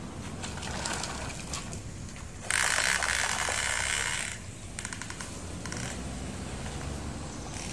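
Plastic toy dump trucks pushed by hand over gritty dirt, their wheels rattling and clicking, with a louder stretch of gritty scraping a few seconds in.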